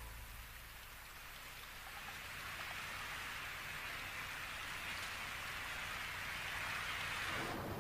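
Steady rain falling, a soft even hiss that grows a little louder over the first couple of seconds and drops away suddenly just before the end.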